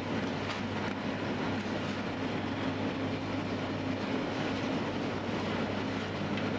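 Steady hum and rushing noise of running bakery machinery, with a constant low hum and no pauses.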